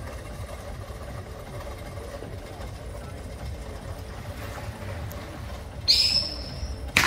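Low background rumble while a firework's fuse burns. About six seconds in, a firework goes off with a sudden high, steady shriek lasting under a second, then a sharp bang near the end.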